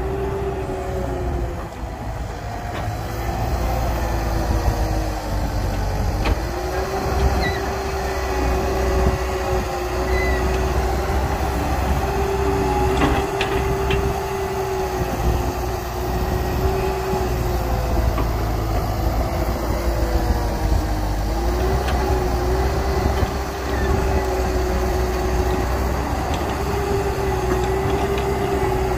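Heavy diesel engine and hydraulics of an excavator working, a steady low rumble with a whine that dips and comes back up in pitch several times as the load changes. A couple of brief knocks sound over it, about halfway through and at the very end.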